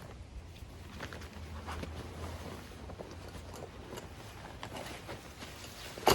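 Tent and carry bag being handled: faint rustling of fabric with scattered light clicks, and one sharp knock near the end.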